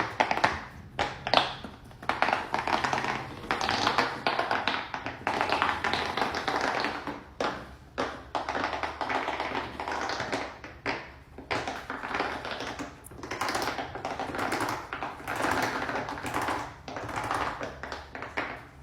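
A dense run of rapid taps and clicks from hands working a homemade fidget toy, broken by a few short pauses.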